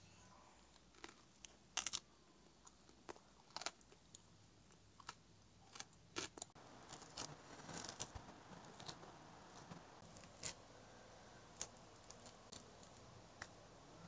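Mandarin orange being peeled by hand: faint, scattered crackles and small tearing sounds as the peel is pulled away.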